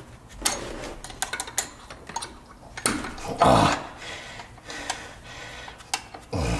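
Small metal clicks and taps of hand tools working the retaining hardware on a Bendix air disc brake caliper, with a louder clatter a little past halfway and another near the end.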